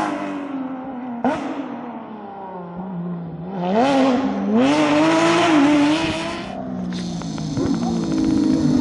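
Porsche 911 rally cars' flat-six engines at speed: the note falls away as a car drives off, then another pulls hard, climbing in pitch through a gear change about four seconds in. In the last couple of seconds a steadier engine note is heard further off.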